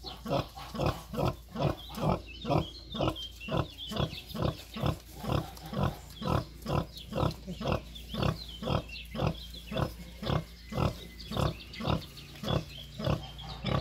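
Nursing sow grunting in a steady rhythm, about two short grunts a second, while her piglets suckle: the rhythmic nursing grunts a sow makes around milk let-down.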